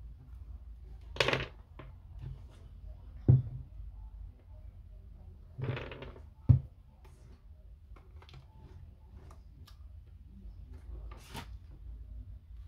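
Hand handling noises from taking apart an Apple Time Capsule: two or three short scrapes, two sharp knocks about three and six and a half seconds in, and scattered light clicks of parts and tools against the casing or work surface.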